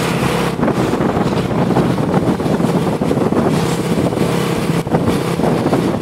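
Steady engine drone and road noise from a moving vehicle, with wind buffeting the microphone.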